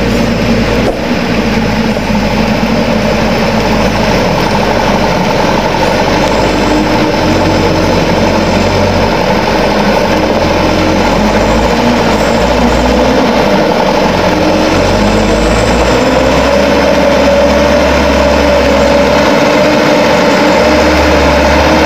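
Mitsubishi Fuso Colt Diesel truck's turbo-intercooled diesel engine running steadily as the truck pulls a full load of oil palm fruit bunches at low speed. It grows slightly louder as the truck comes closer, and its pitch rises a little about three quarters of the way through.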